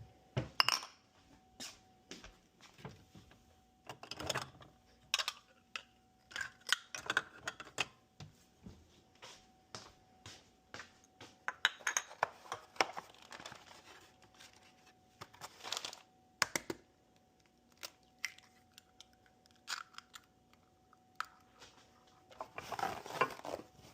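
Kitchen clatter while cooking: irregular clicks, knocks and clinks of utensils and dishes, with a faint steady tone underneath and a longer rustling, scraping stretch near the end.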